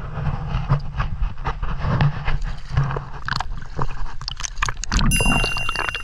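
Water sloshing and splashing around a handheld camera at the surface, with a low rumble and many scattered knocks and clicks. Music comes in near the end.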